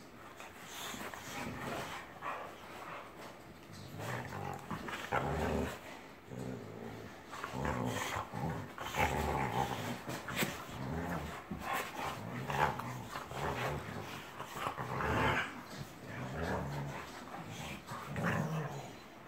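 Two boxer dogs play-fighting, mouth-wrestling with a long, irregular run of low growls and grumbles. The growling is play, not aggression.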